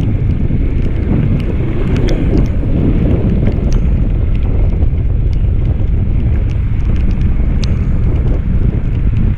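Wind buffeting the microphone on a moving motorcycle in the rain: a loud, steady low rumble that covers the bike's engine and tyres, with scattered light ticks.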